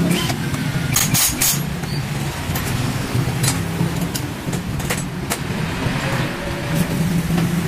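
Hand tools and metal parts clinking and knocking, with a few sharp clicks, a cluster of them about a second in, over a steady low hum of a vehicle engine running.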